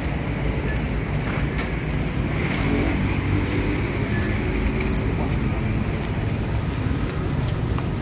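Steady low rumble of street traffic, with a few faint short clicks over it.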